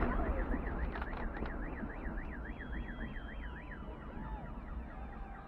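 Car alarm warbling, its pitch swinging up and down about three times a second, stopping a little under four seconds in, with fainter alarm tones behind it. Under it the low rumble of fireworks fades away.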